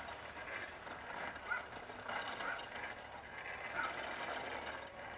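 Rail bike rolling along steel railway rails: a steady mechanical rattle and clicking from the bicycle and its outrigger roller on the track, with two sharper clicks, about a second and a half in and near the end.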